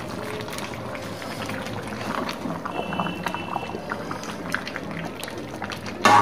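Thick chicken and potato curry sizzling in a metal pan as a metal spatula stirs it, scraping and tapping against the pan in many small clicks, with one louder strike near the end.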